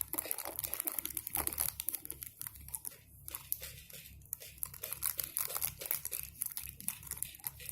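Plastic packets and trays of a Japanese DIY candy kit crinkling and rustling as they are handled, in a quick, irregular run of small clicks.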